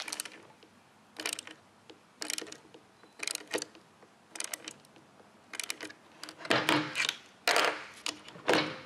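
Metal clicks from a hand tool being worked in the side of a router lift, about one a second, with louder clunks near the end as the Porter-Cable router motor is pushed down into the lift.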